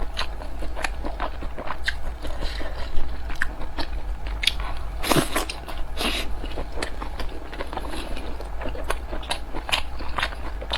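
Close-miked chewing of a steamed dumpling: wet mouth clicks and soft smacks again and again, with a bigger, fuller mouth sound about five seconds in.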